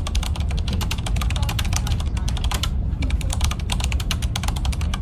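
Computer-keyboard typing sound effect, fast runs of key clicks with a short break about two and a half seconds in, over a steady low rumble of a moving train's cabin.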